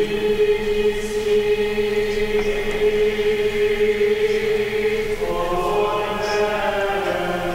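Church choir chanting in unison, sustaining one long note and then moving to a lower note a little after five seconds in, with the plainchant entrance antiphon of the Mass.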